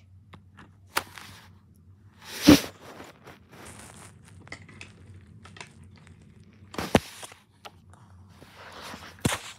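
Phone handling noise: scattered knocks and rubbing as the phone is moved about and covered. The loudest thump comes about two and a half seconds in, with further sharp knocks near seven and nine seconds over a low steady hum.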